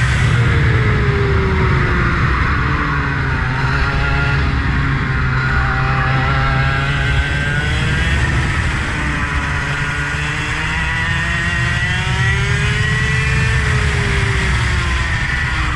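A vehicle's engine running on a track, its revs falling, then climbing and dropping again near the end over a steady low rumble.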